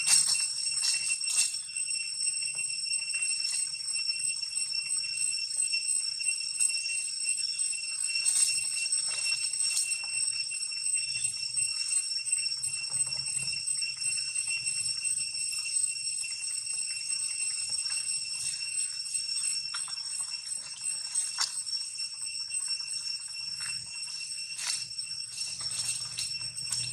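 Steady high-pitched insect drone, such as cicadas, holding one unbroken whine throughout, with scattered faint clicks.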